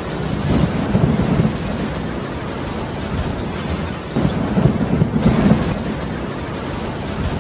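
Thunderstorm: steady rain with two low rolls of thunder, one about half a second in and a longer one about four seconds in.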